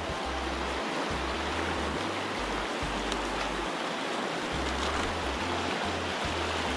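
Fast river rapids rushing steadily, a continuous hiss of white water.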